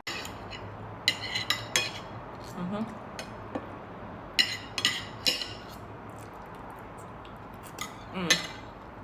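Metal cutlery clinking and scraping on a dinner plate in several short clusters of sharp clinks, with a few brief low mouth sounds between them.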